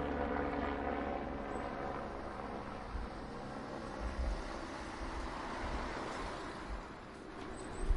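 Airplane flying overhead, its engine drone slowly fading as it moves away. There are low rumbles of wind on the microphone now and then.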